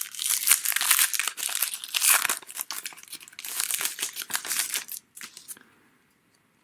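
Wrapper of a 2018 Donruss Baseball card pack being torn open and crinkled by hand: a dense crackling for about five seconds that dies away near the end.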